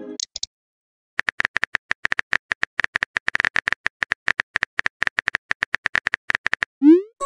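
Phone-keyboard tap sound effects: a rapid, irregular run of light clicks lasting about five seconds as a message is typed. Near the end comes a short rising whoosh, the sound of the message being sent.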